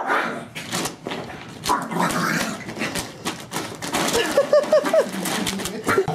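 A small dog scrabbling on a plastic bag of dry dog food while guarding it: the bag crackles and rustles with many sharp clicks. About four seconds in comes a quick run of five short, high dog whines.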